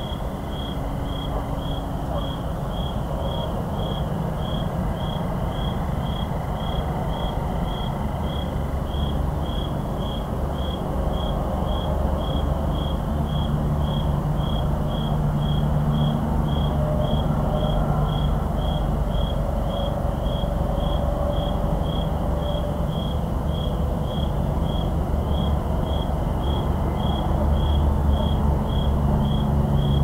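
A cricket chirping at a steady, even rate of about one and a half high chirps a second, over the louder steady rumble of distant highway traffic.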